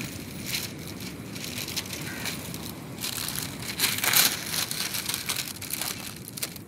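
A large sheet of butter paper rustling and crinkling in irregular bursts as it is unfolded, pulled and spread over a frame of thin sticks by hand, loudest about four seconds in.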